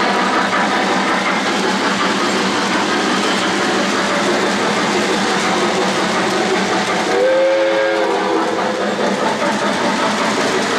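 O-gauge three-rail model freight cars rolling steadily along the track. About seven seconds in, a model locomotive's sound system blows a short chime steam whistle of several notes together, lasting about a second and a half.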